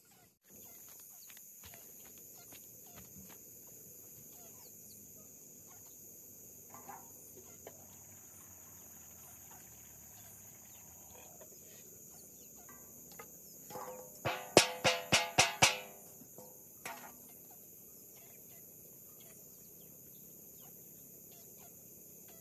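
Insects chirring in a steady high-pitched chorus, with faint scattered clicks. About fourteen seconds in, a chicken gives a loud, quick run of about six clucks, with one more call a second later.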